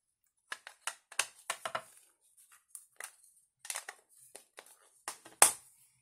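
Hands handling papercraft supplies on a cutting mat: a scattered run of light clicks and paper rustles, with one sharper click about five and a half seconds in.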